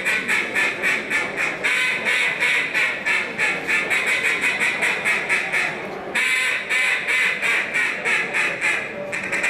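A mallard duck call blown in competition style: fast runs of short quacking notes, several a second, with two brief breaks for breath, about 6 s and 9 s in.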